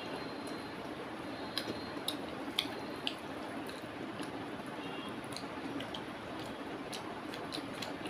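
Fingers mixing rice and chicken curry on a metal plate: soft wet squishing with scattered light clicks, over a steady background hiss.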